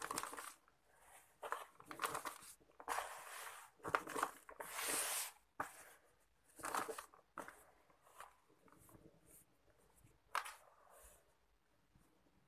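Hands rubbing and crumbling dry, gritty sand-and-cement mix in a plastic tub: irregular bursts of crunching and rustling grit, with a longer hissing stretch about five seconds in. It grows sparser and quieter toward the end.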